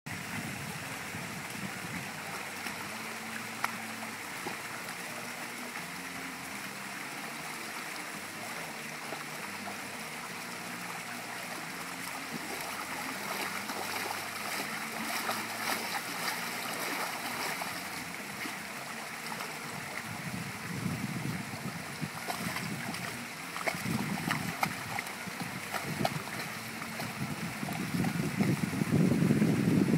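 German Shorthaired Pointer splashing and stamping in shallow pool water over a steady rush of moving water. The splashing grows louder and rougher in the last few seconds.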